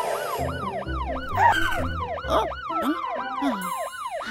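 Cartoon fire truck siren, a fast wail rising and falling a couple of times a second, with other cartoon sound effects underneath.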